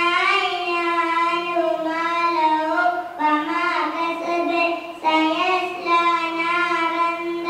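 A young girl chanting a Quran recitation in Arabic, in a high child's voice with long held, gently bending notes. She breaks for breath about three seconds in and again about five seconds in.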